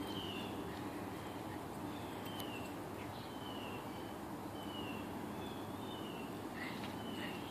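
An animal call, a short falling chirp, repeats about once a second over a steady low hum.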